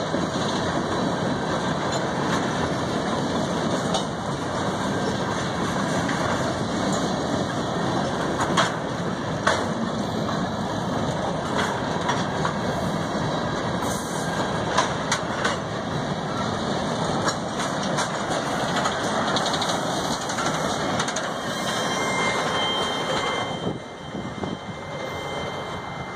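Freight train cars rolling past at close range: a steady rumble of steel wheels on the rails with scattered clanks and knocks. The sound drops off about 23 seconds in as the last car passes and moves away.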